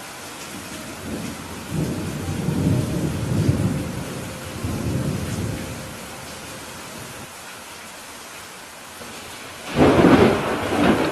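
Steady rain with thunder: a low rolling rumble swells and fades over the first few seconds, then a sharp, loud thunderclap breaks out near the end.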